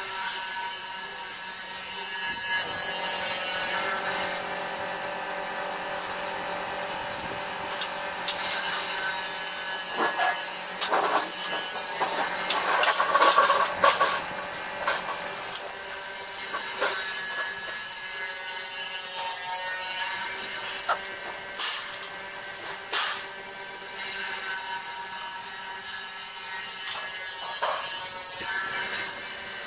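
Sheet-metal parts of a thresher being handled and fitted by hand: metal knocks, clanks and scraping, loudest about ten to fourteen seconds in and again in short bursts later. A steady mechanical hum runs underneath.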